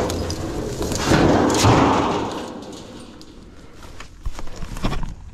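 A discarded metal clothes dryer being shoved aside on rocky ground: a loud scraping rush about a second in, then a few separate knocks and thuds near the end.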